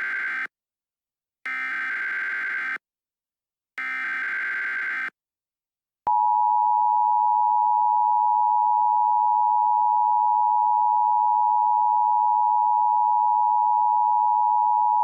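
Emergency Alert System alert sequence: the last of the first SAME header data burst, then two more identical digital data bursts about a second apart. About six seconds in, the steady EAS attention tone starts, louder than the bursts, and holds.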